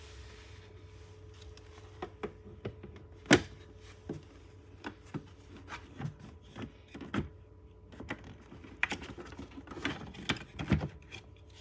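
Irregular clicks and knocks of hard parts being handled at an RV's central vacuum unit, its bag and filter compartment, with one sharper knock about three seconds in and a run of clicks near the end, over a faint steady hum.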